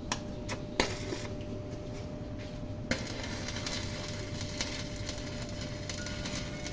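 A few sharp knocks, then about three seconds in a stick-welding arc strikes and crackles steadily.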